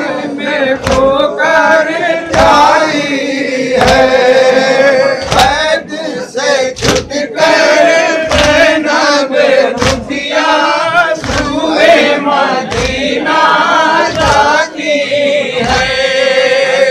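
A group of men chanting a noha, a Shia mourning lament, together over microphones, with the sharp strokes of chest-beating (matam) roughly once a second.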